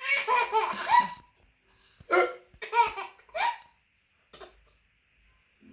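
Laughter broken by hiccups: a laughing burst of about a second, then three short hiccuping laughs about half a second apart, and a faint one later.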